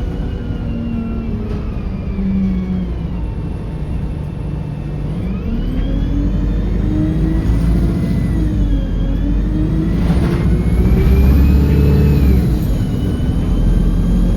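Diesel locomotive engine working hard, its turbocharger whine gliding up and down in pitch several times over a steady low engine note, heard from the train it is hauling.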